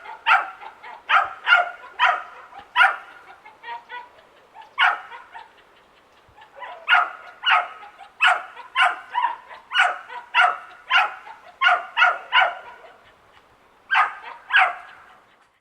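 Young dachshund barking over and over, about two barks a second in runs, with a short break near the middle and another before two final barks near the end.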